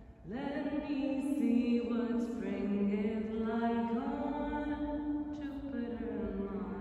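Wordless, chant-like singing in long held notes that slide into one another, starting with an upward slide and moving to a new pitch every second or two.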